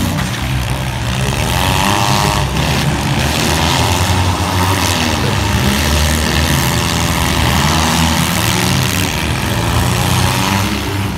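Engines of several four-cylinder demolition-derby cars running together, their revs rising and falling.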